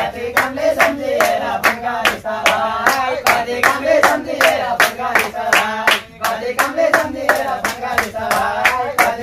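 A group of young men clapping hands in a steady rhythm, about three to four claps a second, while male voices sing a Nepali Teej song.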